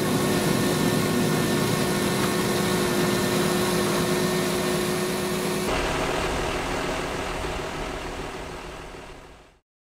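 Large farm tractor's diesel engine idling with a steady hum. The sound changes abruptly about six seconds in, then fades out just before the end.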